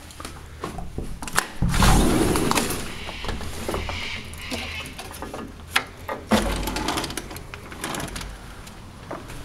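A balcony door rattling and clicking as it is opened and stepped through, with two louder spells of rattling.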